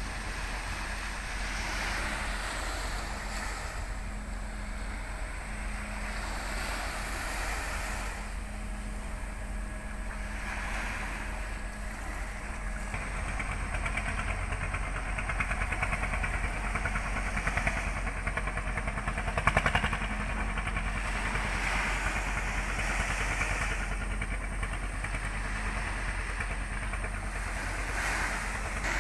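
Large ro-ro ferry's engines humming steadily as it berths, with wind and harbour water noise over it and one brief louder sound about two-thirds of the way through.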